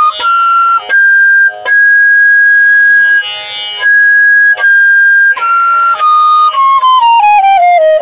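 G-sharp bamboo bansuri playing in its top register: it climbs through Pa and Dha to the high Sa, holding it with short breaks between notes, then runs stepwise down the scale toward the lower notes. Reaching that high Sa cleanly is the sign of a well-made flute that covers three octaves.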